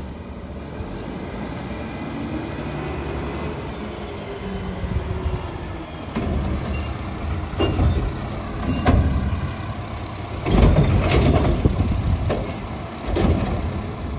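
Mack LR front-loader garbage truck running close by: its engine pitch rises and falls as it pulls up, an air-brake hiss comes about six seconds in, and louder surges of engine and mechanical noise follow in the second half.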